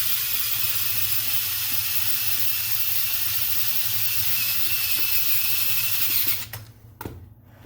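Cordless power screwdriver running steadily with a faint whine as it drives a doorknob mounting screw, stopping about six seconds in; a small click follows a moment later.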